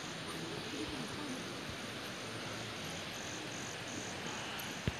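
An insect chirping in an even pulse, about two to three times a second, over a steady outdoor hiss, with a small knock near the end.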